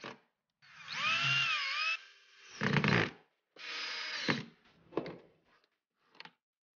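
Electric hand drill running in two short bursts, its motor whine dipping and recovering in pitch as it takes load and falling away as it is released. Knocks and clunks come in between and after.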